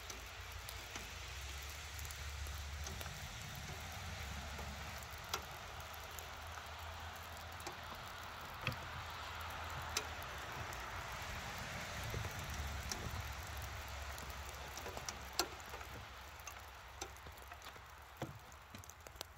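Steady rain falling on wet snow and on the locomotive's wet deck: a continuous hiss with scattered sharp drop ticks, over a low hum.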